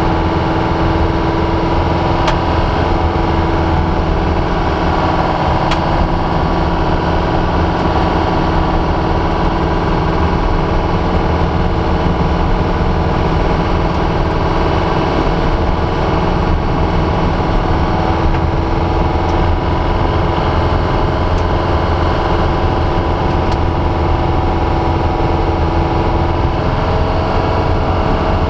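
1974 VW Super Beetle's 1776 cc air-cooled flat-four, with stock peashooter exhaust, running at a steady, even speed, heard from inside the cabin. Road noise from the gravel surface runs underneath.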